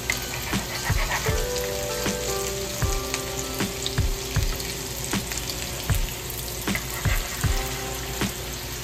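Chicken shami kebabs shallow-frying in hot oil in a nonstick pan, a steady sizzle, with light knocks every half second or so as metal tongs touch the pan while the patties are turned.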